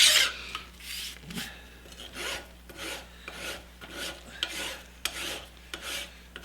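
A metal file rasping in repeated strokes along the freshly milled edge of a thick steel plate, about two strokes a second, taking off the burrs left by the cutter.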